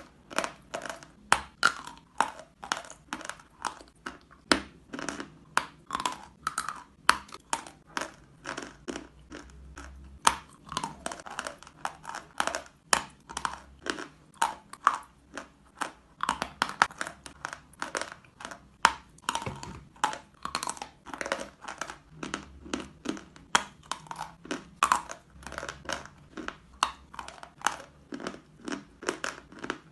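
Chewing chalk: a steady run of crisp, gritty crunches, several a second, with sharper loud cracks every second or so.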